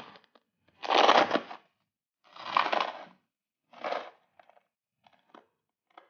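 Dry rice rustling and crunching as a plastic toy truck is pushed through it in a sensory bin. It comes in three bursts, each shorter than the last, followed by a few faint clicks.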